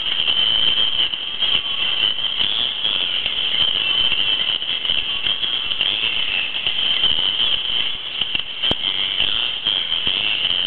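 Singing plush cow toy playing its song through a small, tinny speaker: a rattling, shaker-like stretch with no clear melody, with one sharp click about three-quarters of the way through.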